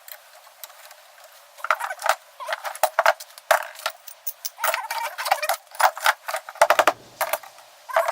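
Irregular metallic clicks, clinks and short squeaks of hand tools working on a brass faucet as it is taken apart for scrap.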